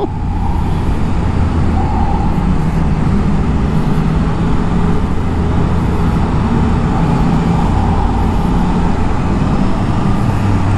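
Motorcycle engine running steadily while riding, with road and wind noise and surrounding traffic.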